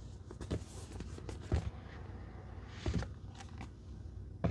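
A cardboard tarot deck box being handled and opened on a table: a few soft knocks and thuds as it is turned and set down, the loudest about a second and a half in, with a brief rustle of the lid sliding off near three seconds in.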